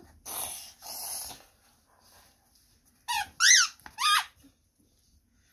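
A squeaky toy squeaks three times in quick succession about three seconds in, each squeak a short rise and fall in pitch, the middle one loudest. It is preceded by two breathy huffs.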